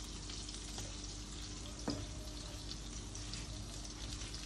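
Cutlets frying in shallow oil in a non-stick pan, sizzling steadily, with a single light click about two seconds in.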